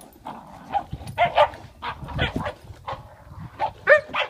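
Dogs barking and yipping in short calls while they play tug of war over a toy, the loudest call near the end.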